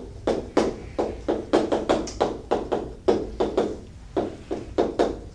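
Chalk tapping and scratching on a blackboard as a line of words is written: a quick, irregular run of sharp strokes, about four a second, with a short pause partway through.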